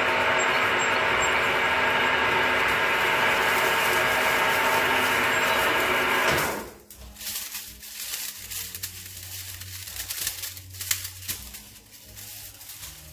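Milling machine running, its spindle and gears driving a 40 mm drill through metal, in a loud steady drone that stops abruptly about six and a half seconds in. Then come light, irregular clicks and scrapes of metal chips being moved about.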